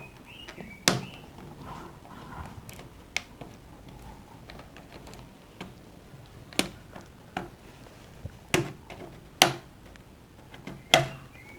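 Sharp, irregular clicks and snaps of a laptop keyboard being pried out of its frame with a plastic opening pick, its retaining clips letting go one by one, about eight clicks in all.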